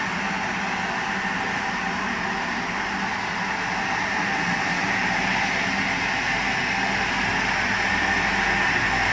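Steady hum and whir of running factory machinery, with a constant low tone and a thin high whine; the low rumble grows a little louder in the second half.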